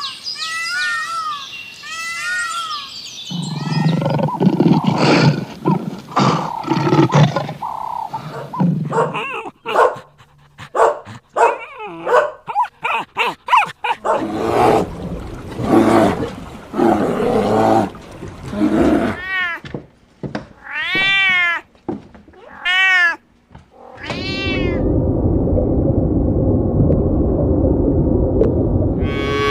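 A run of different animal calls, one clip after another, including repeated cat meows.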